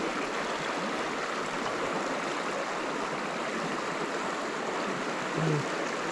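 Creek water running high and fast, rushing steadily over a shallow riffle. A brief low hum about five seconds in.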